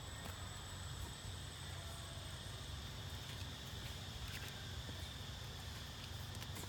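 Steady outdoor background: a constant high-pitched drone over a low hum, with no distinct event standing out.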